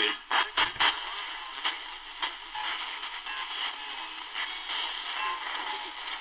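Tecsun DR-920C portable radio's speaker hissing with medium-wave static as it is tuned between AM stations, with faint scattered crackles. A quick cluster of clicks and knocks about half a second in as the set is handled.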